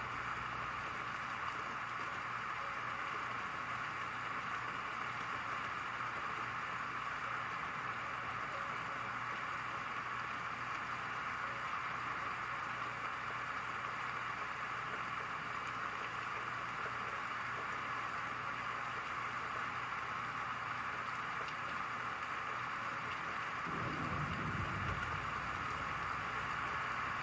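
Light rain falling steadily, an even hiss. A low rumble rises near the end.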